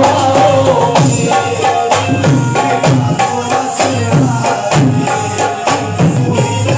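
Qawwali music: a harmonium holding sustained chords over a hand drum keeping a steady beat of about two strokes a second.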